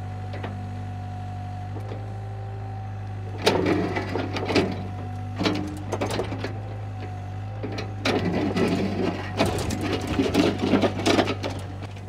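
Takeuchi TB153 mini excavator's diesel engine running steadily with a hydraulic whine, its note stepping up about two seconds in. The bucket scrapes and drags through soil and stones with intermittent clattering from about three and a half seconds in, heavier after about eight seconds.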